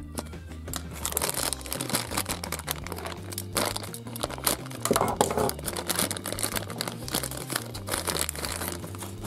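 Thin plastic toy wrapper crinkling and tearing as it is slit with a utility knife and pulled open, over background music.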